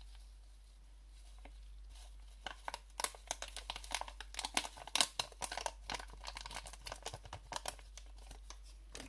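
A small paper food packet crinkling and rustling as it is handled, a dense run of short crackles that starts about two and a half seconds in.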